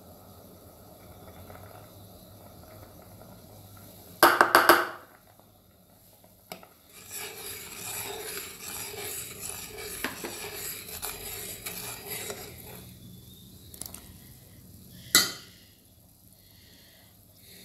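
Ladle stirring soup in a metal pot, scraping and sloshing for about five seconds. There is a loud rapid clatter about four seconds in, as the spice bowl is knocked against the pot, and one sharp clank near the end.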